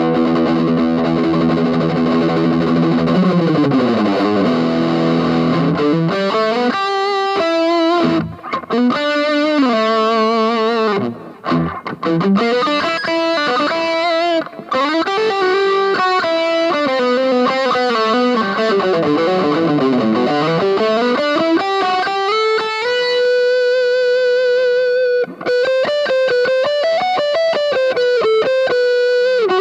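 Aria Pro II PE electric guitar played through distortion. A held chord slides down in pitch a few seconds in, then comes a lead line of sustained notes that bend and glide with wide vibrato, ending on a long held note.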